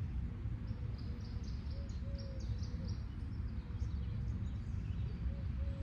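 Steady low rumble of background noise, with a small bird chirping in a quick run of short high notes during the first half.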